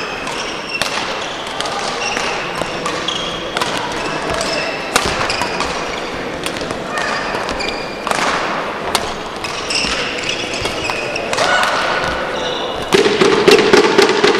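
Badminton rally in a sports hall: sharp racket strikes on the shuttlecock and brief high squeaks of court shoes on the floor, with hall echo. A louder burst of voices comes in near the end.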